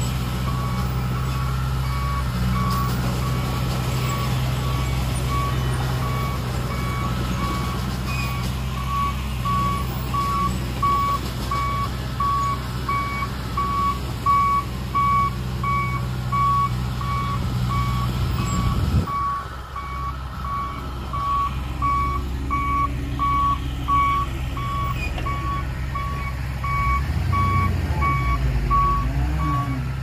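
Heavy vehicle's back-up alarm beeping steadily at one pitch while a diesel engine runs underneath. About two-thirds of the way through, the engine's low rumble drops suddenly to a lighter note, then builds again near the end.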